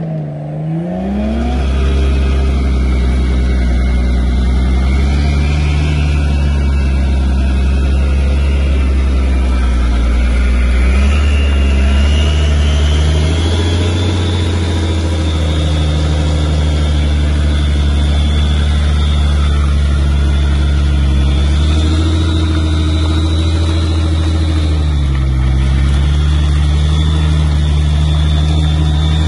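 A vehicle engine running steadily under load, its pitch shifting a few times, with a high whine that rises slowly about ten seconds in and then holds.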